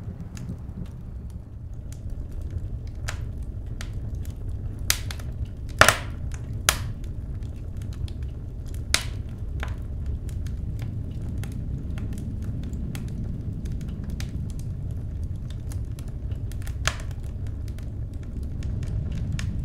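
Wood fire crackling, with scattered sharp pops over a steady low rumble. The loudest cluster of pops comes between about five and nine seconds in.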